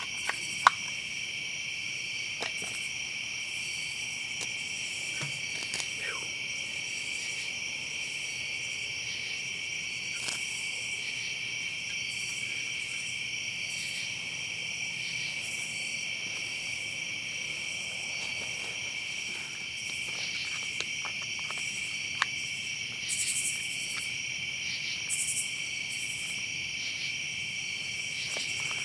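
Steady, continuous high-pitched chorus of night-singing insects such as crickets, with a few scattered sharp clicks and knocks.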